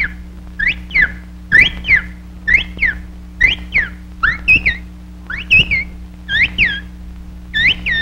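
Cartoon bluebird chirps, whistled: high paired tweets that each rise and then fall in pitch, repeating about once a second, over a steady low hum from the old soundtrack.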